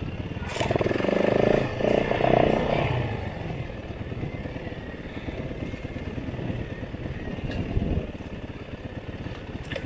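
Motorcycle engine under way on a trail, getting louder with a rise in revs about a second in, then running on more steadily at a lower level.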